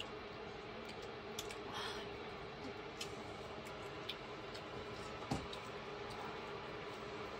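Scattered light clicks and taps over a steady low hum, with one louder knock about five seconds in.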